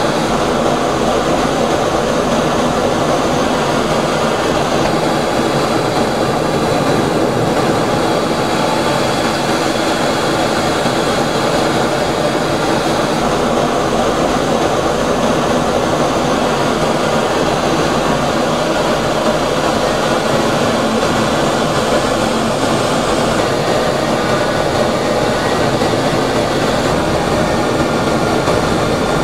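Steady jet engine noise from a fighter aircraft in flight, holding an even level with no breaks.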